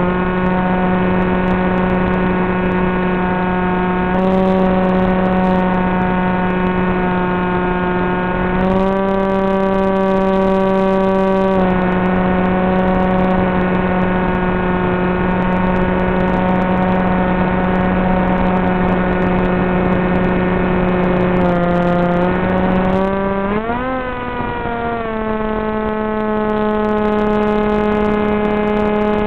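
Brushless electric motor and propeller of a Wing Wing Z84 flying wing (Turnigy 2826-2200kv) buzzing steadily at cruise throttle, stepping slightly up or down in pitch a few times with throttle changes. About 24 seconds in it dips, then sweeps back up to a slightly higher steady pitch. Heard thin and muffled through the analog video link's recorded audio.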